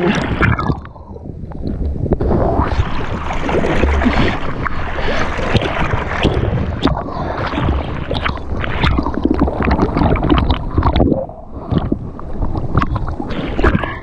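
Water splashing and sloshing against a kitesurf board and a camera just above the waterline, in irregular splashes, with wind rumbling on the microphone.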